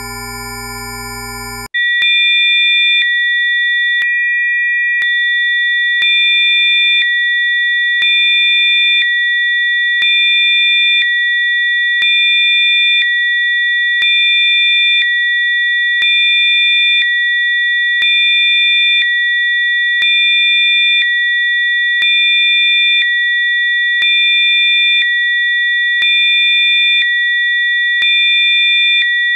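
Electronically generated Rife-frequency sine tones. A chord of several steady pure tones cuts off after about two seconds. A new set of three steady, high-pitched tones then starts and swells slightly in level every two seconds.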